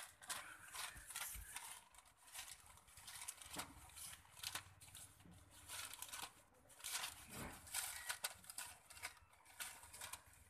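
A cow chewing and pulling at a sheet of newspaper: faint, irregular crinkling and rustling of the paper.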